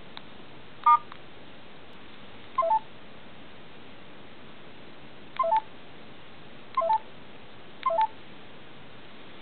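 LG A100 mobile phone's keypad tones as buttons are pressed: five short beeps at irregular intervals, most of them two quick notes, over a faint steady hiss.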